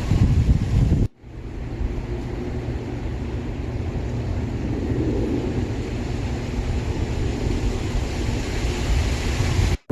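Strong wind gusting, with a heavy low rumble of wind buffeting the microphone. The sound drops out abruptly for a moment about a second in and again near the end.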